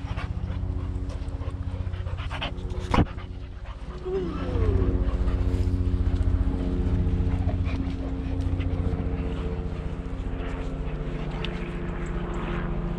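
A helicopter droning steadily overhead with an even, fast pulsing, while boxer dogs pant close by. A single sharp click about three seconds in.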